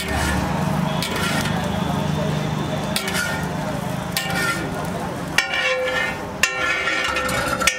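Metal spatula scraping and striking a large flat iron griddle while an egg omelette is folded, with a light sizzle. The sharp strikes come about every second, over a steady low hum that stops about two-thirds of the way through.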